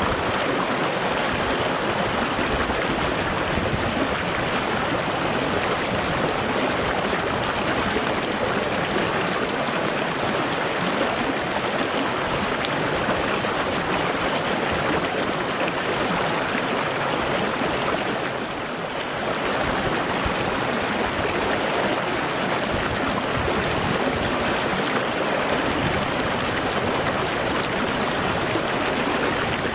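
Shallow rocky stream rushing over rocks in a small riffle: a steady rush of water, dipping briefly a little past halfway.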